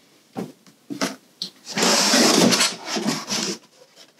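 A few light knocks, then about two seconds of loud scraping and rustling of cardboard as the shipping box's flaps are pulled open, dying away near the end.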